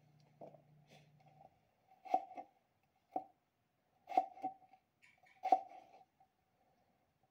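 Kitchen knife slicing a peeled potato and striking a plastic cutting board: four sharp knocks, roughly a second apart, starting about two seconds in.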